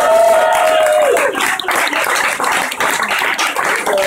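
A room of people clapping and applauding. A long, drawn-out call from a voice rises over the clapping in the first second or so.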